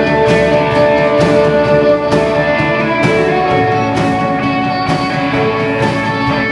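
Music led by guitar, with sustained chords and a strong beat about once a second.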